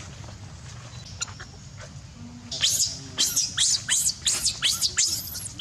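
A monkey giving a rapid run of shrill, high-pitched screams, about three a second, starting about halfway through.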